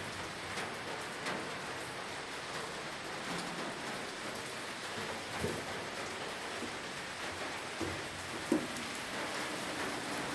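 Steady rain falling, with a few soft knocks, the sharpest about eight and a half seconds in.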